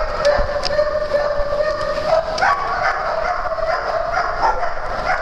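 Dogs barking and yipping at play, with many short sharp sounds and a steady high-pitched tone held underneath.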